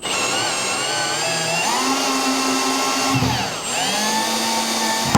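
Power drill running in reverse, driving the recore tool to back the valve core up out of the isolation valve. The motor speeds up about a second and a half in, dips briefly about three seconds in, picks up again, and stops at the end.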